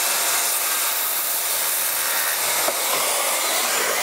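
Makita circular saw running steadily at full speed, trimming the end off a hardwood broom handle.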